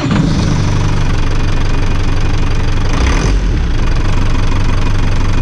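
Volvo Penta TMD22 four-cylinder marine diesel running at idle just after starting, with steady diesel knock. It is a test run after an injector was cleaned and refitted, with a brief deeper rumble about three seconds in.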